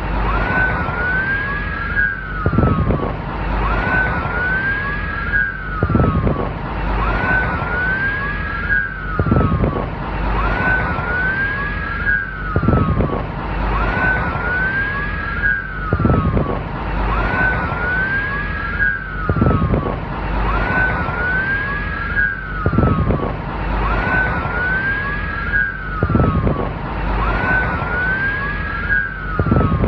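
Police car siren wailing, its pitch sweeping up and down in a cycle that repeats about every three seconds, over a low rumble that swells on the same beat.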